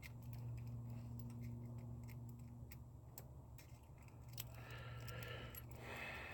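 Sparse small metallic clicks and scrapes of a lock pick working inside a lock cylinder to free a stuck core, over a steady low hum.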